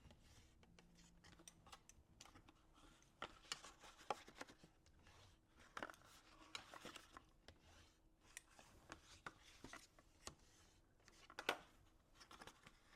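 Faint crisp clicks, rustles and rubbing of cardstock being folded along its score lines and burnished flat, coming irregularly, with the sharpest crease sound near the end.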